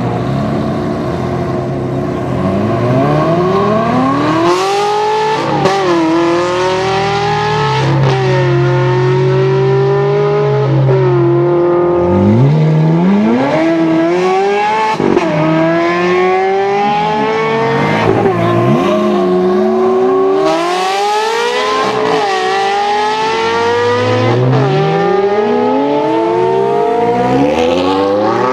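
Ferrari mid-engined V8 supercars, including a 360 Challenge Stradale, accelerating hard away one after another. Each engine note climbs through the revs, drops sharply at a quick upshift and climbs again, many times over.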